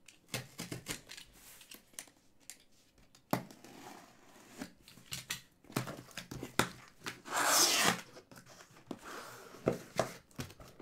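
Sealed cardboard case being opened by hand: tearing and crinkling, with clicks and knocks of handling, and one loud tear lasting under a second about seven seconds in.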